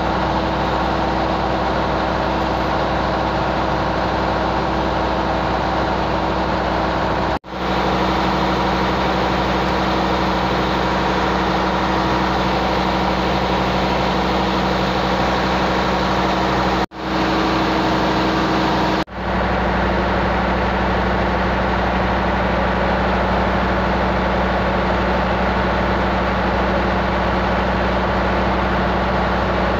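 A river-taxi boat's big inboard diesel engine runs steadily under way, giving a constant heavy drone mixed with the rush of the wake along the hull. The sound cuts out for a split second three times.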